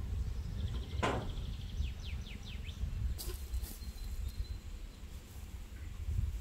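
Outdoor orchard ambience: a steady low rumble of wind on the microphone, with a sharp click about a second in. A bird sings a short run of quick descending chirps about two seconds in, and a thin high whistle follows near the middle.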